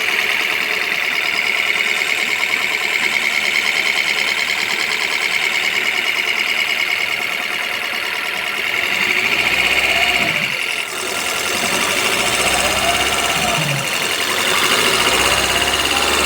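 Freshly overhauled Jeep Compass petrol engine running smoothly just after its first start. In the second half, its pitch rises and falls a few times.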